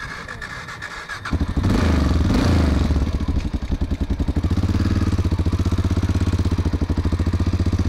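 Single-cylinder enduro motorcycle engine running, getting louder about a second in, then a steady, rapid, even firing pulse.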